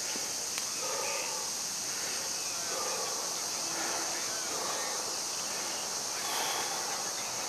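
Backyard ambience: a steady high-pitched hiss with a few short bird calls scattered over it.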